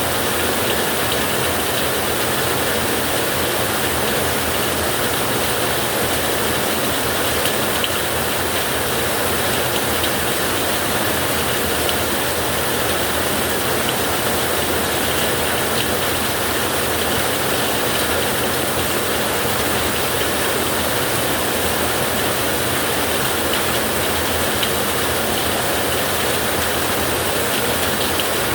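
Ocean surf ambience: a steady, even wash of water noise without distinct wave surges.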